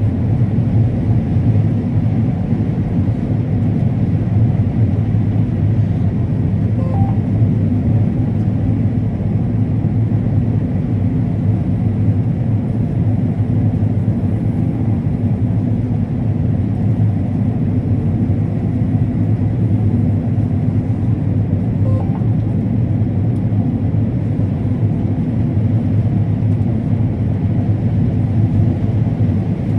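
Combine harvester running steadily while harvesting corn: an even, low mechanical rumble with no breaks.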